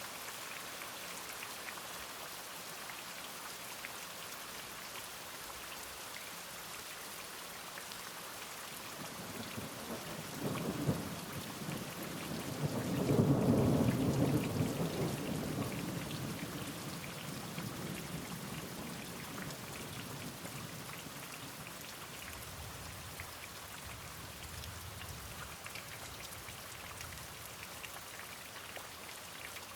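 Steady rain falling, with a roll of thunder that builds about nine seconds in, peaks a few seconds later and rumbles away over several seconds.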